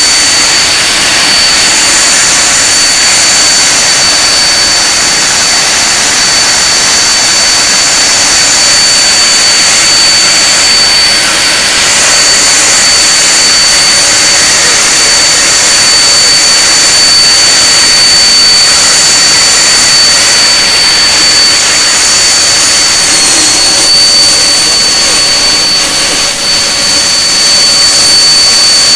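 Rolls-Royce Conway turbofan engines of a Handley Page Victor K2 running on a stationary ground run: a very loud, steady jet noise with a high, steady whine over it.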